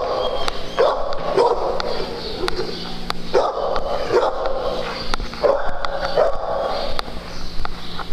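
Dogs barking, a string of short, sharp barks coming every second or so with brief gaps.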